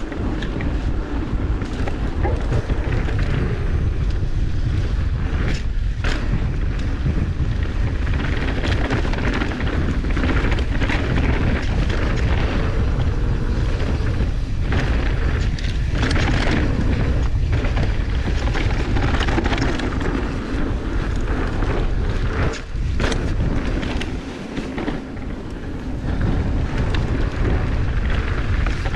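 Mountain bike ridden fast down a dirt singletrack: heavy wind rumble buffeting the camera microphone over steady tyre-on-dirt noise, with scattered knocks and rattles as the bike hits bumps.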